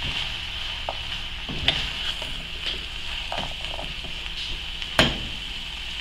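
Shredded chicken and mixed vegetables sizzling in an aluminium pot on the heat while being stirred with a silicone spatula, with light scraping and a few clicks of the spatula against the pot, the sharpest about five seconds in.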